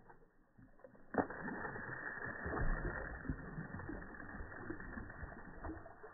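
A toy water gun's stream spraying and splashing against a dog's mouth and the pool water, slowed down by slow-motion playback so it sounds low and muffled. It starts suddenly about a second in, a steady splashing hiss with scattered sharp splats.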